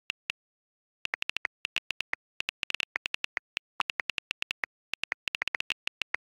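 Smartphone on-screen keyboard clicks: quick, evenly spaced key taps, about six or seven a second, as a text message is typed, with a short pause near the start.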